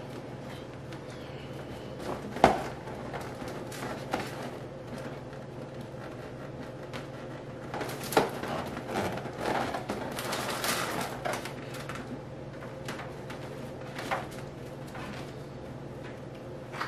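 Handling noise as hands adjust a set of balloons: scattered rustles and light knocks, with one sharp tap about two and a half seconds in and a run of rustling near the middle, over a faint steady hum.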